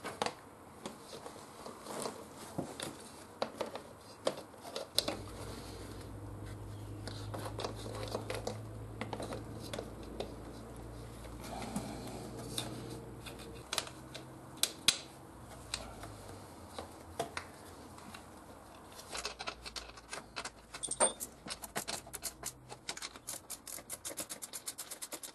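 Clicks, taps and knocks of hands fitting a motorcycle radiator and its plastic shroud back in place, with a steady low hum through the middle. In the last few seconds a fast, even run of clicks.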